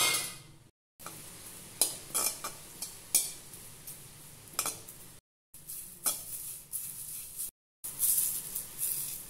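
Metal spatula stirring curry leaves as they dry-roast in a kadai, with sharp clinks and scrapes against the pan. Near the end, a crisp rustling as the roasted, dried-out leaves are crumbled by hand. The sound is broken by a few short silent gaps.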